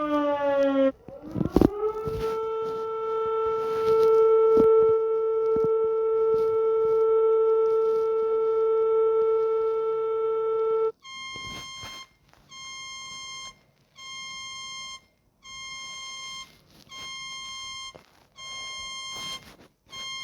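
Two alarm signals in turn. First a siren tone rises and then holds steady for about nine seconds before cutting off suddenly. Then an electronic alarm beeps at a higher pitch, about one beep a second long every second and a half, eight times.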